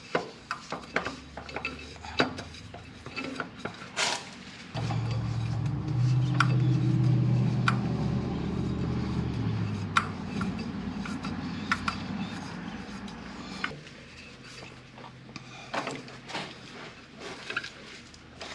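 Hydraulic filter being spun onto its mount by hand: scattered small metallic clicks and scrapes. A steady low hum joins in about five seconds in and fades out some nine seconds later.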